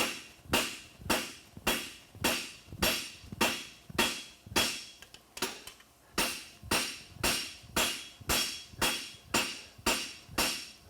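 Farrier's hammer striking a steel horseshoe bar on an anvil, steady blows with a metallic ring at about two a second, with a short pause about five seconds in. The bar is wedged on the anvil corner while the toe of a toe-cap hind shoe is being forged.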